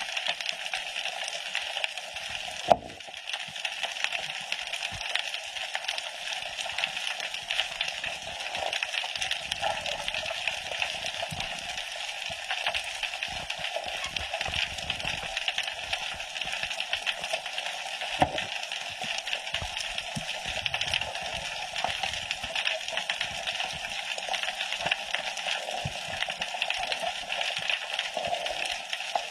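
Underwater reef ambience picked up through a camera's waterproof housing: a steady crackling hiss of fine clicks, with a sharp knock about three seconds in and another about eighteen seconds in.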